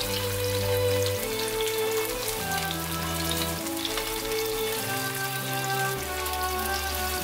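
Potato-and-minced-meat patties sizzling and crackling in hot vegetable oil in a frying pan, under background music whose steady notes and chords change every second or so.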